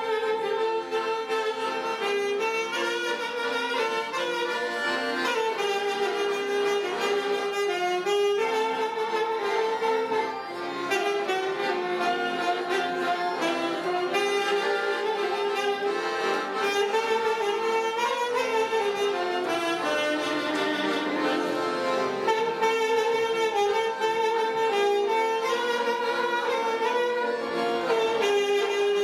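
Saxophone and two piano accordions playing a Christian hymn tune together in a steady flow of held, melodic notes.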